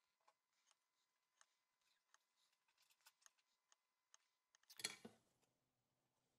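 Faint scratches and small ticks of a mechanical pencil tracing along the edge of a template onto paper. About three-quarters of the way in comes one brief, louder burst of handling noise as the pencil is put down and the paper is picked up.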